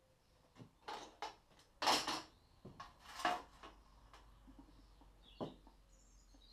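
Hand-work noises from tools and metal parts being handled at a workbench: a string of separate clinks, knocks and short scrapes, the loudest about two and three seconds in. Faint high bird chirps come near the end.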